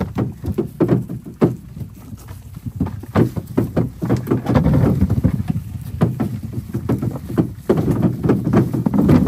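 Peaches tumbling and knocking on a wooden sorting table as a bucket is tipped out and the fruit is sorted by hand: an irregular run of thuds and clatter.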